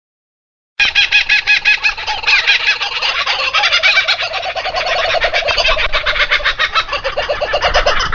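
Domestic fowl calling: a dense run of rapid, repeated clucking calls that starts abruptly about a second in, after a moment of silence.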